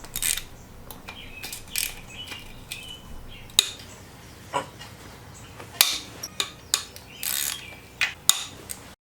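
Metal engine parts and hand tools clinking, clanking and scraping as the engine is taken apart: a dozen or so separate knocks and rattles at uneven intervals, cut off abruptly near the end.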